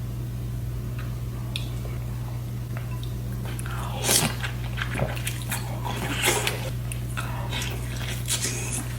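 A person biting and chewing seafood close to the microphone, mukbang-style: a few small clicks at first, then a run of sharp crunchy bites from about four seconds in. A steady low hum sits underneath.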